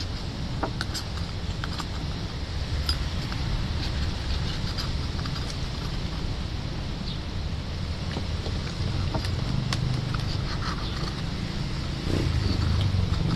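Faint clicks and scrapes of sea urchins being handled and a spoon scraping inside a shell, over a steady low rumble that gets louder near the end.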